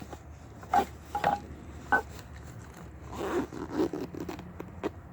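Handling of a baseball equipment bag and gear: three short knocks in the first two seconds, then a rasping scrape like a zipper about three seconds in.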